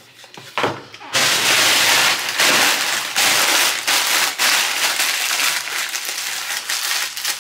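Plastic packaging crinkling and crackling loudly as it is handled and opened, starting about a second in and continuing steadily.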